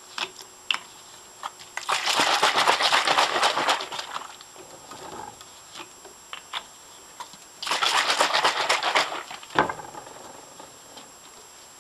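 Plastic bottles of liquid being handled and moved about on a tabletop: scattered light knocks and clicks, and two longer scraping, rustling noises of about two seconds each, one about two seconds in and one near eight seconds in.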